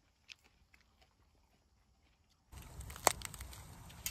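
Near silence with a few faint clicks, then from about two and a half seconds in, close crisp crackling of fresh lettuce leaves being folded by hand into a wrap, with one sharp loud crackle about three seconds in.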